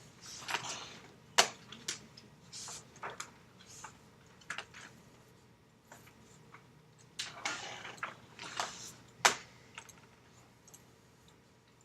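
Graphite pencil strokes scratching on paper in short, irregular bursts, with a sharp click about a second and a half in and another near the end.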